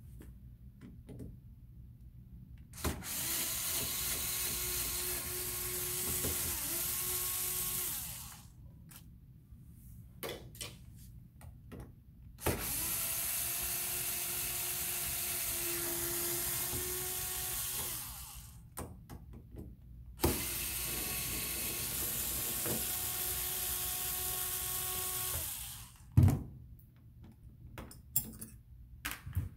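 Cordless drill/driver backing out the hinge screws of a chest freezer lid. It runs three times for about five seconds each, its pitch shifting within each run, with clicks and knocks between the runs.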